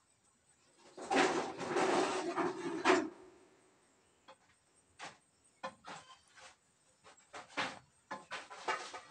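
Handling noise: a loud rasping rustle lasting about two seconds, then scattered light knocks and clicks of a plastic food container being handled.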